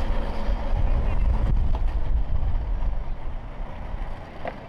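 Johnson outboard motor on a small cabin boat running at low speed while manoeuvring to dock, a low rumble that is stronger for the first three seconds and then eases.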